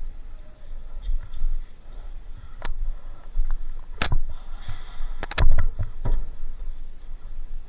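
Scattered sharp knocks and clicks over a low rumble, with a single one a little under three seconds in and a close cluster of several about four to six seconds in.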